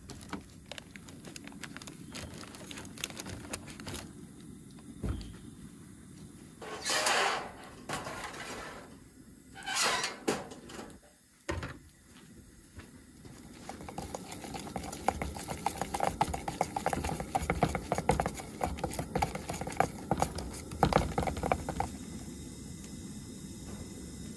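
Kitchen handling sounds at a camp table: scattered light knocks and rustles of utensils and parchment, two short rustling bursts, then a long run of quick clinks and scrapes of a spoon stirring glaze in a cup.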